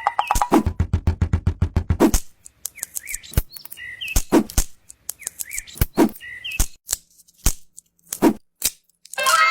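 Sharp clicks and knocks: a fast run of them in the first two seconds, then single knocks spaced out, with short high chirps in between.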